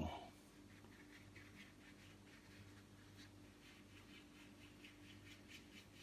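Faint scratchy strokes of a blending brush scrubbing acrylic paint on a painting board, about three strokes a second, over a low steady hum.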